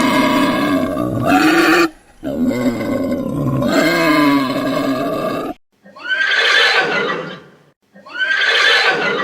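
Wild animal calls: two long, drawn-out pitched calls, then after a short gap two shorter, harsher calls that fall in pitch.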